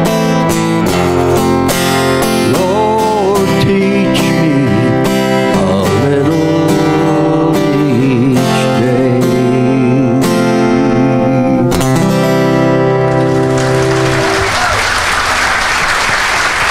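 Acoustic guitar strummed with a man singing along, the song ending on a held chord; about fourteen seconds in, audience applause breaks out as the chord fades.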